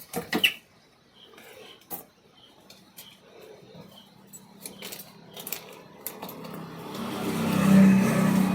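Scattered small clicks and taps of wires and a screwdriver being worked into the terminals of a plastic switch-socket board. From about six and a half seconds in, a louder rustling noise with a low hum swells up and stays to the end.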